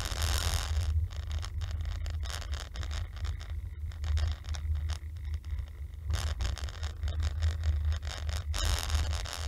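Car driving on a city street, heard from a dashcam inside the cabin: a steady low road and engine rumble with hiss and scattered ticks and rattles. The hiss swells near the start and again near the end.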